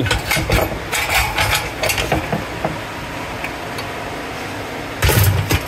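Aluminum heat sinks and metal scrap clanking and clattering as they are handled onto a scale, with a quick run of clinks in the first couple of seconds and another clatter near the end.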